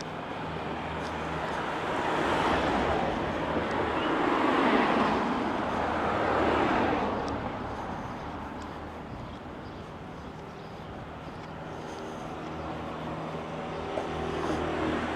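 A vehicle passing by: a broad rushing engine noise that builds over a couple of seconds, peaks, and fades away, over a steady low hum.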